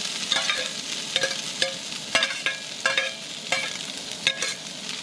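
Sliced ribeye and onions sizzling in a frying pan while being stirred, with a utensil scraping and clacking against the pan about twice a second.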